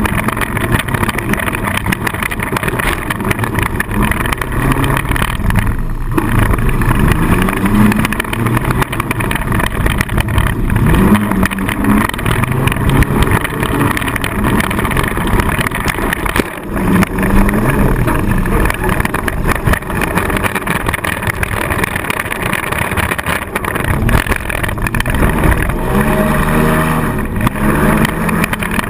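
Four-cylinder demolition derby car's engine revving up and down over and over, loud and harsh, heard from inside the car.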